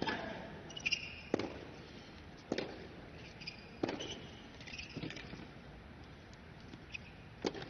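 Tennis ball bounced and struck with rackets on a hard court: a string of sharp single pops about a second apart, with a few short high shoe squeaks between them.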